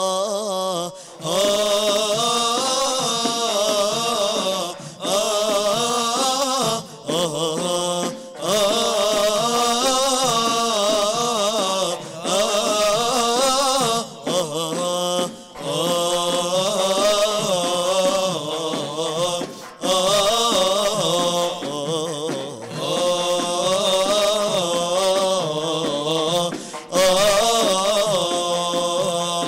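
A male vocal group singing an Arabic nasheed in praise of the Prophet, in long, wavering, ornamented phrases a few seconds each with short breaks between them and no percussion.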